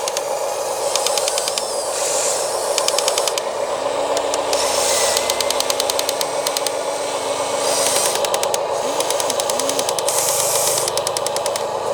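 Small electric motors and plastic gearboxes of radio-controlled model construction machines whirring steadily, with several short runs of rapid clicking and bursts of hiss on top.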